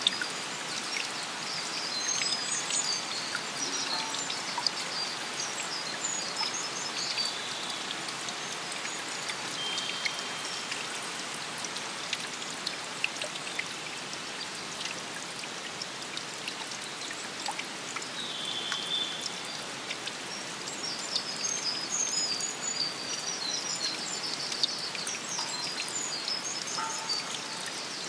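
Steady rain pattering in a forest, with the hiss of running water beneath. Small birds twitter in short high chirps a few seconds in and again toward the end.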